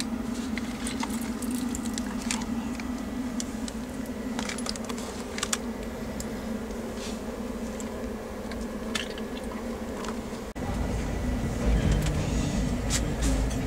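Passenger train running, heard from inside a coach: a steady running hum with scattered sharp metallic clicks and rattles. About ten seconds in, the sound cuts abruptly to a louder, deeper rumble.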